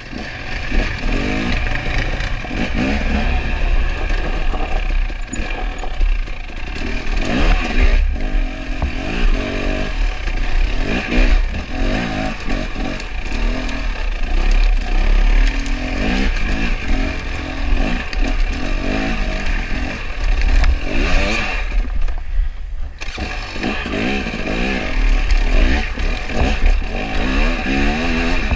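Husqvarna TX300 two-stroke dirt bike engine under riding load, revving up and down over and over as the throttle is worked, with a brief let-off about three-quarters of the way through. Wind rumbles on the microphone underneath.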